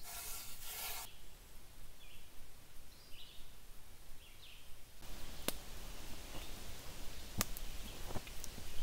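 A hand rubbing across the surface of a fired clay roof tile for about a second, then quiet outdoor background with a few faint short chirps and three sharp clicks in the last few seconds.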